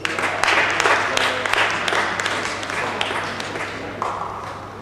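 Applause and hand clapping from a small crowd in a large sports hall. It starts suddenly and dies away over about three seconds.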